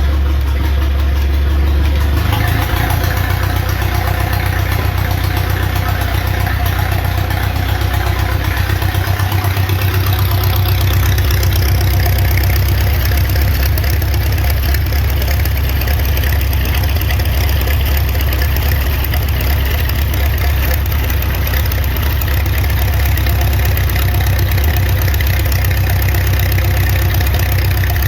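1920 Allis-Chalmers 6-12's four-cylinder Le Roi engine running steadily, freshly started now that the magneto has the correct impulse coupling parts and is still being fine-tuned. Its speed shifts a little about two seconds in.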